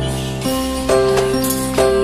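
Background music: a light tune of held notes that change about every half second.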